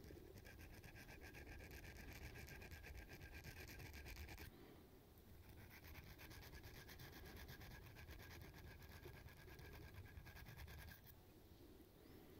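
Faint, rapid rasping of an orange-handled hook sharpener drawn back and forth across the point of a fishing lure's hook, in two long runs of quick strokes: the first stops about four and a half seconds in, the second starts a moment later and stops about a second before the end.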